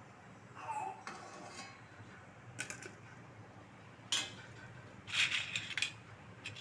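Metal utensil clinking and scraping against a kadai while frying puris: scattered sharp clinks, the loudest about four seconds in, then a quick cluster of clinks a second later.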